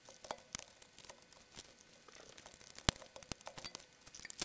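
Hands handling a plastic camcorder body, the Canon UC-X10: small clicks and rustles of plastic parts, with one sharper click about three seconds in.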